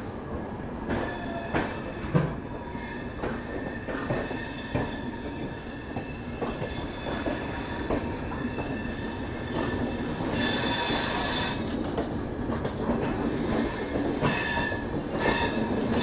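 Passenger train wheels squealing on the rails as the train moves slowly through station trackwork, with scattered knocks of wheels over rail joints and points. The squeal grows louder about ten seconds in and again near the end.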